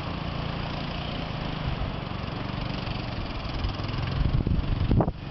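Quad bike engine running steadily, with a few loud knocks near the end.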